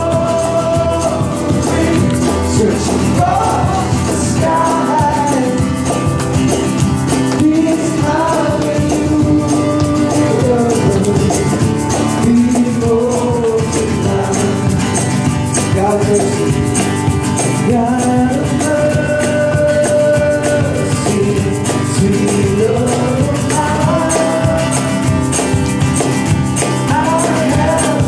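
Live worship song: acoustic guitar strummed over a steady cajon beat, with a voice singing the melody.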